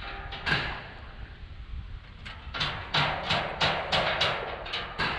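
Hammer blows on steel Speedfloor joists and lock bars: one knock, then a quick, even run of about eight sharp strikes, about three a second.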